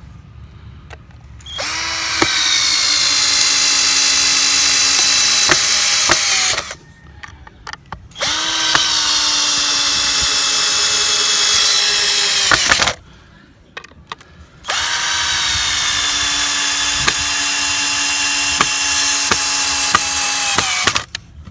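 Electric power drill run in three bursts of about five seconds each, holding a steady pitch and winding down at the end of each, with short pauses between.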